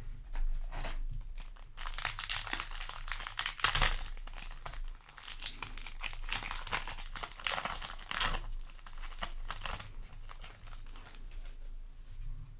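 A Yu-Gi-Oh! foil booster pack wrapper being torn open and crinkled by hand, a dense crackling for several seconds from about two seconds in, then lighter rustles of the wrapper and cards.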